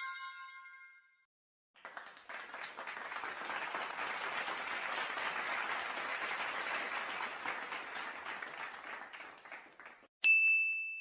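A bell-like ding rings and fades out. About two seconds in, a stretch of applause-like clapping swells and fades over eight seconds. Near the end comes a short, high ding.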